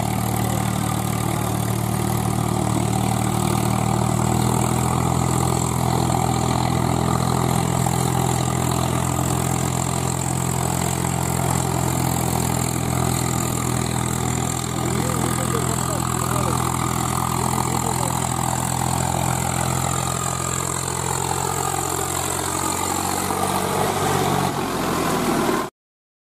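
Swaraj 735 XT tractor's three-cylinder diesel engine running steadily under load as it pulls a loaded trolley along a rutted dirt track. The engine note holds steady, then cuts off abruptly near the end.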